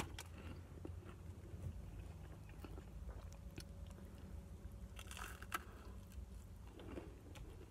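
Close-up eating sounds: quiet chewing, then a crunchy bite into a fried chicken finger about five seconds in, over a steady low hum.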